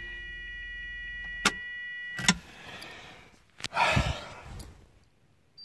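A 1982 Mazda RX-7's dashboard warning buzzer sounds steadily with the key on, then stops with a click as the key is turned to start; the rotary engine does not crank, a sign of a flat battery that needs a boost. A short burst of rustling handling noise follows about four seconds in.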